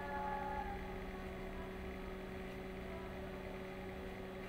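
A steady electrical hum over a low rumble, with a brief faint pitched sound in the first second.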